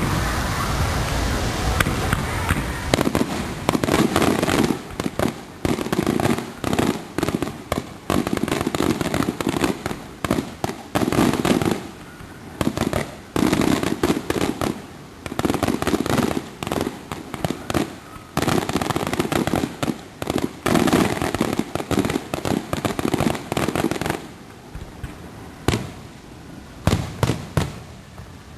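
Aerial fireworks display: shell after shell bursting with sharp bangs and crackle, in dense volleys with brief lulls between them, starting about three seconds in.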